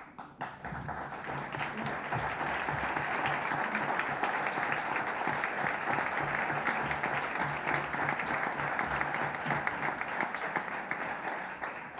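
Audience applauding after a poem reading. It swells within the first second, holds steady, and dies away near the end.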